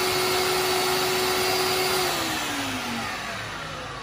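Ninja countertop blender pureeing roasted tomatillos and peppers into a green sauce on high, its motor giving a loud, steady whine. About halfway through it is switched off and the motor winds down, the whine falling in pitch and fading.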